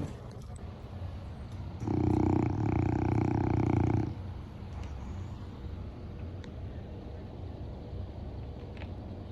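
Boston Terrier snoring in its sleep: one loud snore starts about two seconds in and lasts about two seconds, with a brief dip partway through. A fainter low rumble of breathing runs before and after it.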